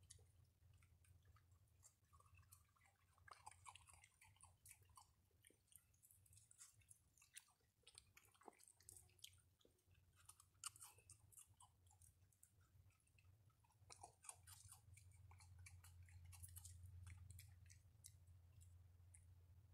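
A raccoon eating: faint, irregular crunching and chewing clicks over a low steady hum.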